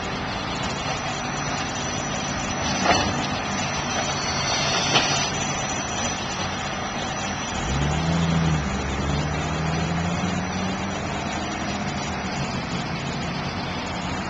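A heavy engine running steadily, with two sharp knocks about three and five seconds in. The engine revs up in steps about eight seconds in, typical of demolition machinery working.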